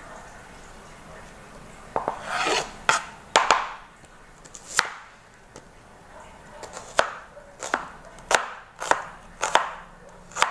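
Kitchen knife chopping on a cutting board: about a dozen sharp, irregular knocks with a few brief scraping rustles, sparser for a couple of seconds in the middle.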